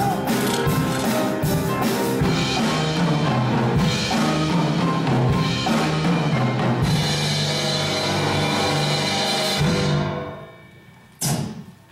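Loud, dramatic band music with heavy drums and timpani, fading away about ten seconds in. A single sharp, ringing hit follows near the end.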